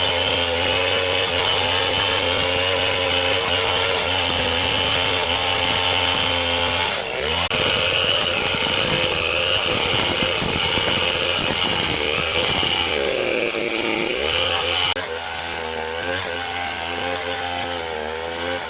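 Chainsaw running and cutting into a tree, its engine pitch dipping and recovering under load twice; about fifteen seconds in the sound changes abruptly and turns somewhat quieter.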